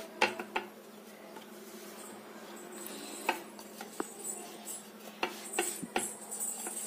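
Wooden rolling pin rolling and knocking on a wooden chapati board as spinach dough is rolled out and flipped by hand in flour, with a handful of sharp taps scattered through, over a faint steady hum.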